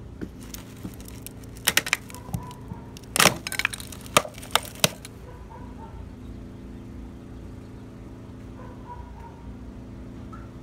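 Old cast iron sewer pipe cracking and splitting as a pipe-bursting head, trailing new polyethylene pipe, is pulled into it: a cluster of sharp cracks and snaps from about two to five seconds in, the loudest about three seconds in. A steady low machine hum runs underneath.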